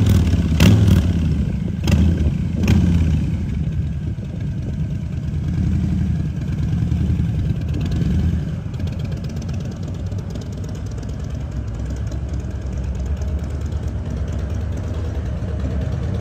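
Custom chopper motorcycle engine running through a Jekill & Hyde valve-controlled exhaust. It is blipped in the first three seconds, with several sharp cracks, then settles to a steady idle with a regular low pulse.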